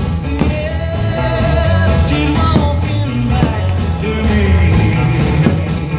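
Loud music with singing over a steady beat and heavy bass: the soundtrack of a pyromusical fireworks show.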